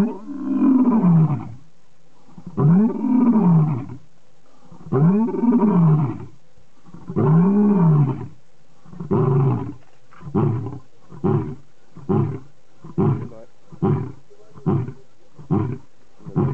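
Male lion roaring: about five long roars about two seconds apart, each rising then falling in pitch, trailing off into a run of short grunts, about one and a half a second, the usual close of a lion's roaring bout.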